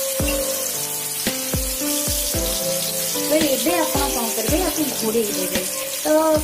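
Fish pieces shallow-frying in hot mustard oil, a steady sizzle, under background music with a regular beat; a wavering melody joins about three seconds in.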